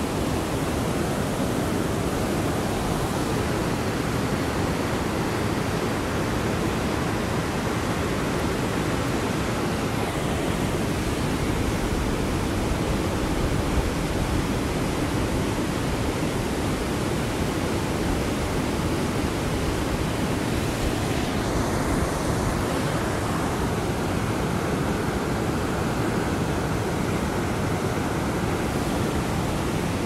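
River rushing through whitewater rapids: a steady, unbroken rush of water like white noise, even in level throughout.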